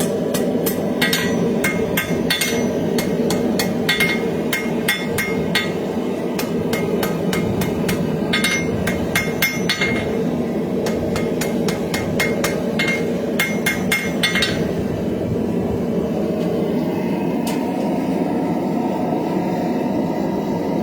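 Hammer blows on a forged steel knife blade against an anvil, ringing, in runs of about three strikes a second with short pauses, refining the blade's shape. The hammering stops about 14 seconds in, and a steady low rumble runs on underneath throughout.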